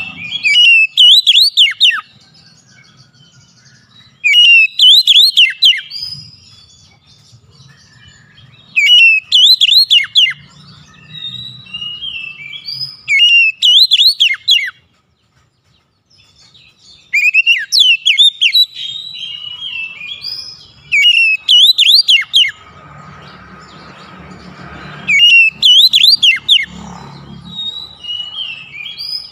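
Oriental magpie-robin singing: loud bursts of quick, sweet whistled notes sweeping up and down, each phrase one to three seconds long, repeated every few seconds with short pauses between.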